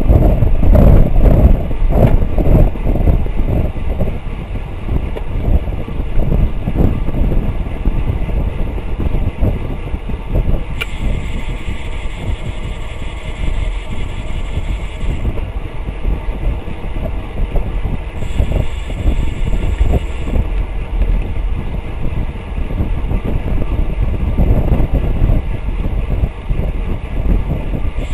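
Wind rush and road rumble on a rear-facing bike camera's microphone on a road bike at about 25 mph. The rear freehub buzzes while the rider coasts, starting with a click about eleven seconds in and lasting about four seconds, then again briefly a few seconds later.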